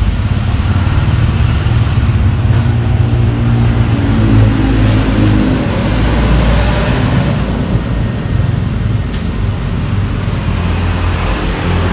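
Engine running close by, a steady low hum whose pitch wavers a little around the middle, with one short click about nine seconds in.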